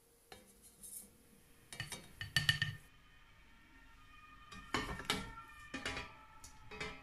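Kitchen clatter: a plastic slotted spoon knocking against a stainless steel pot and a ceramic plate. It comes in two clusters of short ringing clinks, one about two seconds in and another about five seconds in.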